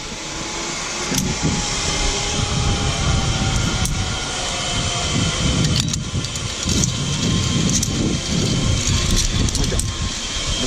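Zip line trolley running fast along the steel cable, a steady high whine over rushing noise, with wind buffeting the microphone. It builds over the first second as the run gets under way.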